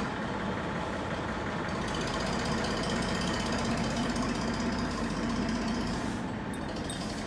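Farm tractor's diesel engine running steadily as it works the soil floor level.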